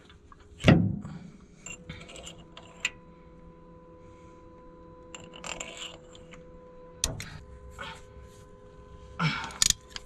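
Metal clinks and knocks from hand tools and parts being handled around a hydraulic pump on a bulldozer. A loud sound falls steeply in pitch about half a second in, and a short loud noisy burst comes near the end, over a faint steady hum.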